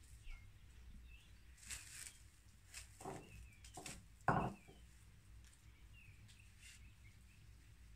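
Faint outdoor ambience with a steady low rumble and a few small bird chirps scattered through it. Several sudden short knocks and rustles come between about two and four and a half seconds in, the last one the loudest.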